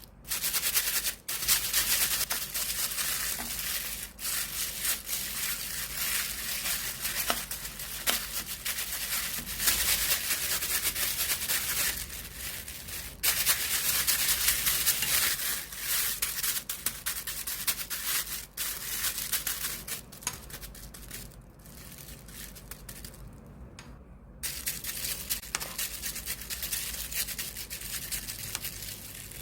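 Water vinyl slime being handled: dense crinkling and crackling like plastic film as it is pressed, folded and stretched. It softens about two-thirds of the way through, stops briefly, then starts again.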